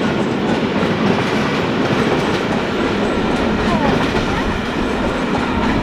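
A train rolling past, loud and steady.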